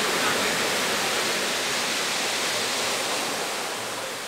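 Sea surf breaking and its wash rushing up and back over the sand, a steady roar of water that eases off near the end.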